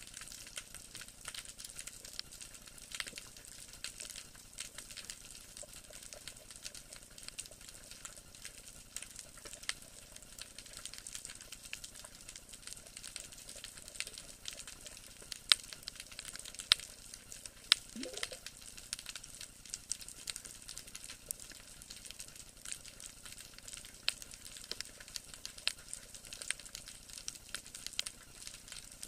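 Underwater crackle: a dense, steady sizzle of many small irregular clicks, of the kind snapping shrimp make on rocky seabeds. A short rising tone sounds once about eighteen seconds in.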